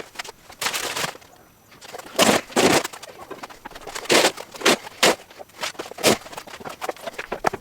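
A series of irregular knocks and scrapes, about seven in all, from work freeing a lathe from its wooden shipping pallet.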